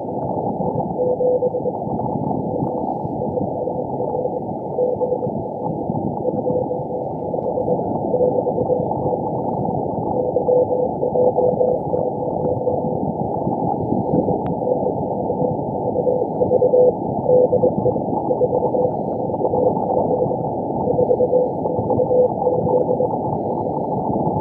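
Morse code (CW) from the Israeli Navy's Haifa station 4XZ, received on a shortwave radio: a single mid-pitched tone keyed on and off in dots and dashes over a steady bed of band hiss.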